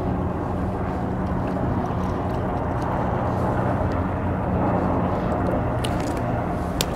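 A steady low engine drone with a constant hum, with two brief clicks near the end.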